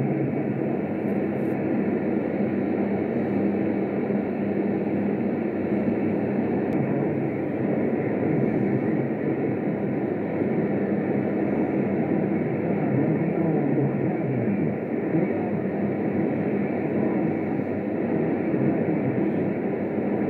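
Radio receiver tuned to 27.025 MHz AM (CB channel 6, the 'Superbowl' channel) playing a steady rushing noise through its speaker. The sound is muffled, with nothing above about 3 to 4 kHz, and does not change.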